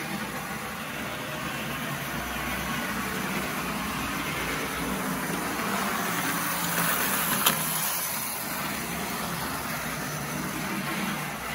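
Penn Line HO-scale GG1 model locomotive running on track, its motor and gear train making a steady, noisy whir. Much of the noise comes from the tower gears driving the trucks. A single sharp click sounds about seven and a half seconds in.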